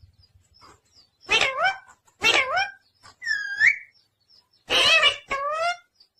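Pet parrot giving a series of about five short, harsh, voice-like calls, one of them a rising whistle about three seconds in.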